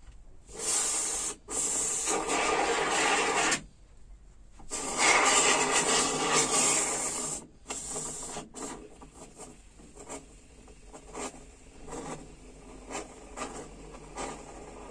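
Can of polyurethane spray foam hissing as it is sprayed, in two long bursts of about three seconds each, then a string of short sputtering squirts. The can is being held upright instead of upside down as it should be.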